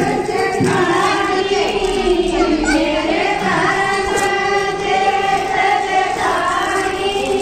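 A group of voices singing a devotional song together, with long held notes.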